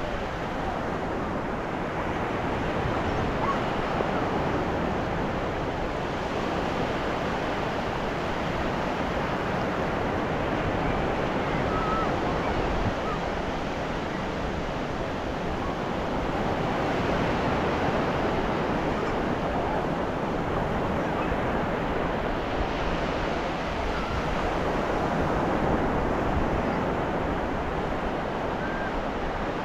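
Ocean surf washing onto a beach, a continuous rush of breaking waves that swells and eases every several seconds.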